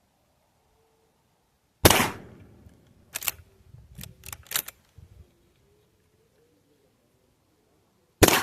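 Two shots from a GForce Arms LVR410 lever-action .410 shotgun, one about two seconds in and the second near the end. Between them come a few sharp metallic clicks and clacks of the action being worked.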